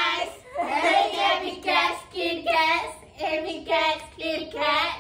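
Girls' voices singing together in a string of short, high phrases.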